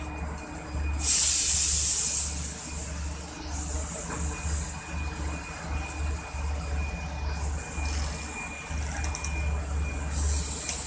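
Stainless-steel passenger coaches of a departing express train rolling slowly past, with a steady low rumble. A loud burst of hissing air starts about a second in and lasts about a second, and another hiss comes near the end.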